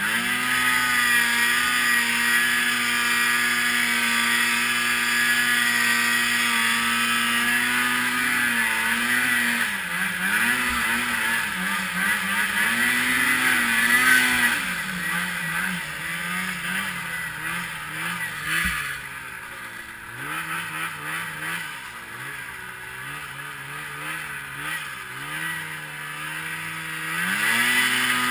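Polaris IQ Shift 550 snowmobile's two-stroke engine running at high, steady revs. The revs then drop and climb again several times, loudest about halfway through. The engine stays lower and uneven for a while before revving back up near the end.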